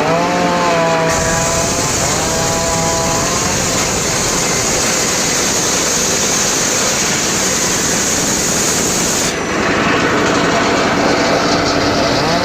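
Homemade circular saw rig working teak wood: the machine's pitch rises near the start, then the blade runs through the timber with a dense high hiss for about eight seconds, which stops suddenly near the end.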